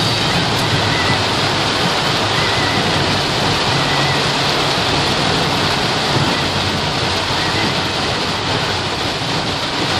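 Torrential rain falling on a moving car, a loud, steady, dense hiss with no let-up.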